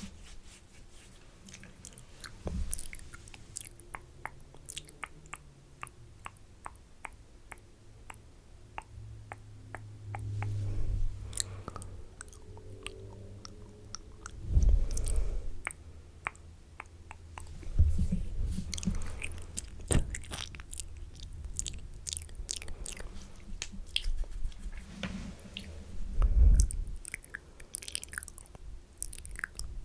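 Close-miked wet mouth sounds: spitty clicks, smacks and licking right at the microphone, with several dull thumps against it.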